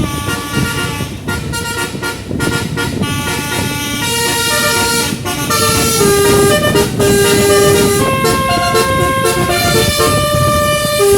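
A 12-note "Musashi" basuri musical bus horn playing a melody. It plays quick short notes at first, then longer held notes from about four seconds in, over low background noise.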